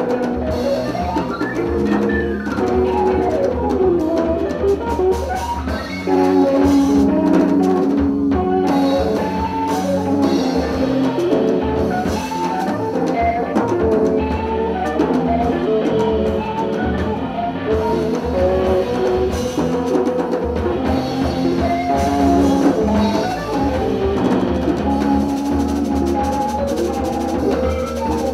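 Improvised jazz trio playing live: a keyboard plays busy, shifting lines of short notes over a bass and a drum kit, with steady low bass notes and scattered drum strokes underneath.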